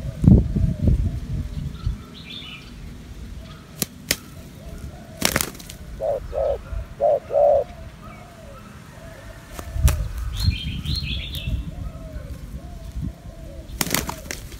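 Spotted doves on the ground: wing flaps in bursts near the start and again about two-thirds through, a short run of three low coos about six seconds in, and a few sharp clicks, the loudest about five seconds in. Faint bird chirps and calls go on in the background.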